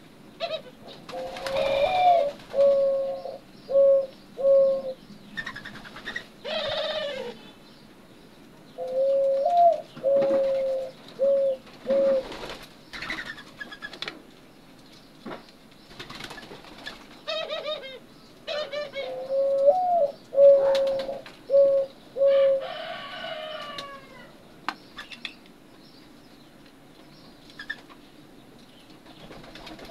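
Doves cooing: three cooing phrases, each a drawn-out note followed by several short coos, repeated every eight seconds or so, with a few higher, scratchy calls in between.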